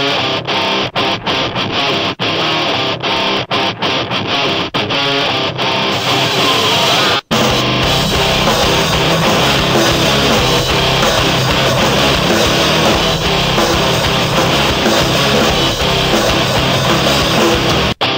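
Background rock music with guitar. It is choppy and stop-start at first, breaks off briefly about seven seconds in, then carries on without breaks and with heavier bass.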